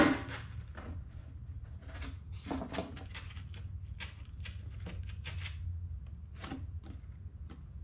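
Stiff cardboard template being handled and pressed down over a metal oil pan: scattered short rustles and light taps, with one sharp knock right at the start, over a steady low hum.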